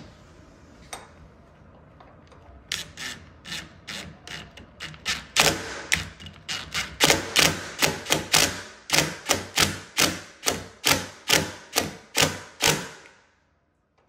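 Cordless driver pulsed slowly in short bursts, driving a threaded wall anchor into a drilled-out hinge-screw hole in a wooden door jamb. It makes a run of sharp clacks, two or three a second, starting about three seconds in and stopping shortly before the end.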